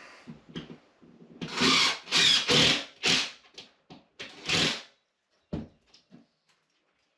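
A run of about five short, loud scraping or rustling noises, followed by a thump and a couple of lighter knocks near the end.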